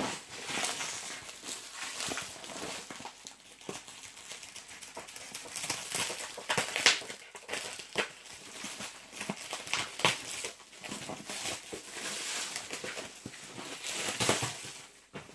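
Cling-film-like plastic wrapping being crinkled and pulled off a parcel by hand: irregular crackling and rustling, with a louder crackle about seven seconds in.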